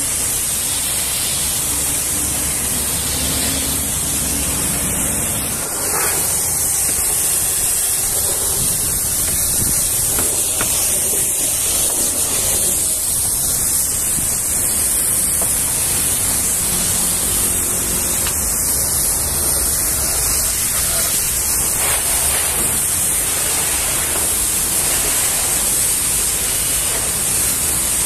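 Pressure washer spraying a jet of water onto the trailer's box panels: a steady hissing rush of water.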